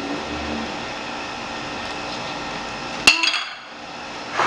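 A steady hum, then about three seconds in a single sharp clink that rings briefly as an orange-handled fork is set down on the table beside a glass salad bowl.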